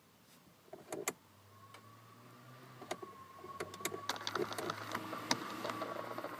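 Toyota Altezza air-conditioning flap servo motor running with a steady whine and quick, irregular clicking that grows busier after a few seconds. It is the kacha-kacha clatter of a servo motor that has gone bad, a noise the owner takes for this car's typical fault.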